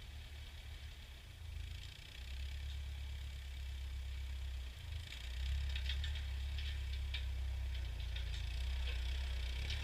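Ford farm tractor engine running with a steady low rumble that gets louder about two seconds in and again about five seconds in, with light rattling on top from then on.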